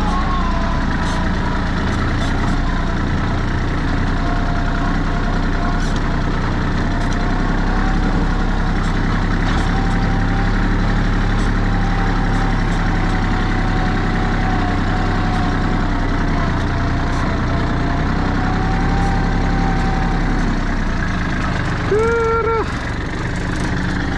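A vehicle engine running steadily while driven, with a faint wavering whine over the low hum. Near the end there is one short pitched tone lasting about half a second.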